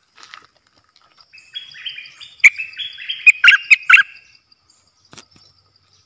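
Stripe-throated bulbul singing one quick phrase of short stepping notes, about three seconds long, with several sharp loud accents in its middle. A faint high steady tone runs behind it.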